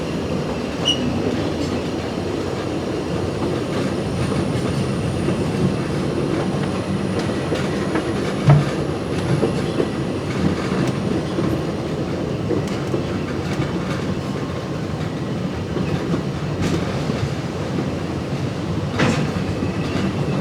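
Steam train's passenger car rolling along the track, heard from on board: a steady rumble of wheels on rail, with a few sharp clicks and knocks from the track.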